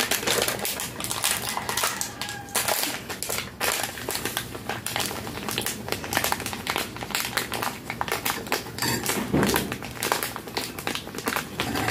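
Plastic sachet of instant coffee mix crinkling as it is shaken and squeezed in the hands while its powder is poured out. The crinkles are dense and irregular and keep going throughout.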